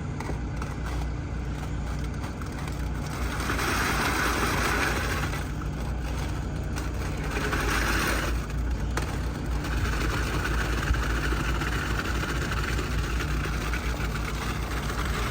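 Skid steer's diesel engine running steadily, with a harsher rushing noise swelling up several times.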